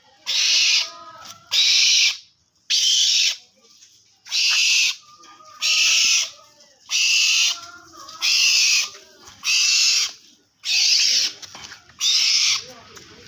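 An owl hissing over and over: harsh, breathy hisses of about half a second each, coming roughly once a second.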